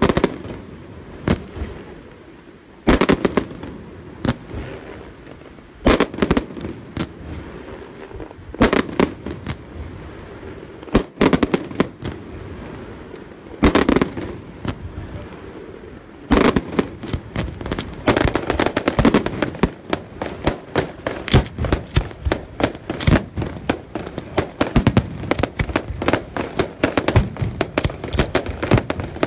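Aerial firework shells bursting: single loud bangs every few seconds, then, from a little past halfway, a dense rapid volley of bangs.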